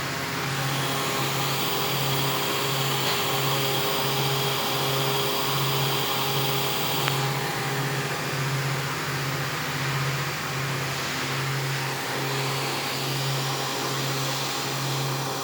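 CNC machine running while cutting a worm gear: a steady mechanical din with a low hum that pulses about three times every two seconds, and a high whine through the first half that stops abruptly.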